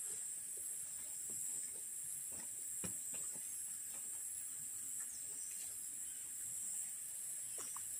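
Steady high-pitched insect chorus, with a few faint ticks.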